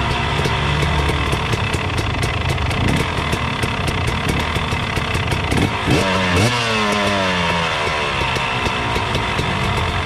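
KTM 250 SX two-stroke single-cylinder dirt bike engine being ridden, its revs falling off the throttle, with a quick rev up about six seconds in before dropping away again. A patter of sharp ticks runs alongside the engine.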